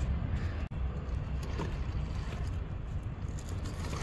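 Radio-controlled rock crawler's brushed motor and drivetrain creeping the truck down a steep rock face on drag brake, a low, steady rumble.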